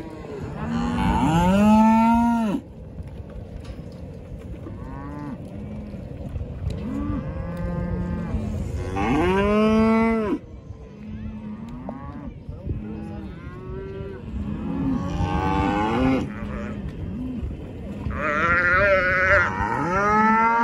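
A herd of cattle bawling, cows and calves calling over and over, often several at once. Long drawn-out moos rise and fall in pitch, the loudest coming about a second in, around nine seconds in, and near the end, where higher-pitched calf bawls join in.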